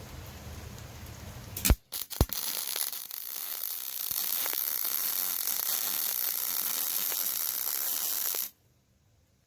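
MIG welding arc from a Yeswelder MIG-Pro250 running .035 wire on 5/16 in steel plate. A couple of sharp clicks about two seconds in as the arc strikes, then a steady crackling hiss for about six seconds that cuts off suddenly near the end.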